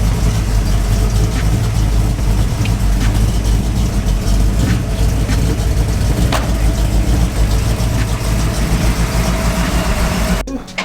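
Engine of a built Fox-body notchback Mustang idling steadily and loudly; the sound cuts off suddenly near the end.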